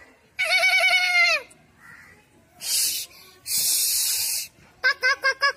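A horse neighing once, a wavering whinny that falls in pitch at the end, then two snake-like hisses, then a hen clucking in a quick run of short clucks, about six a second.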